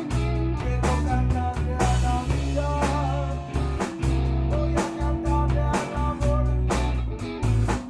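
A four-piece band of two guitars, bass guitar and drum kit playing an instrumental passage. A guitar carries a melody over a steady bass line and drum beat.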